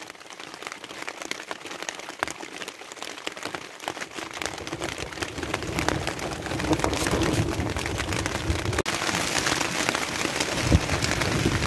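Rain hitting a plastic sheet stretched over a boat: scattered drops at first, thickening into a steady downpour from about halfway.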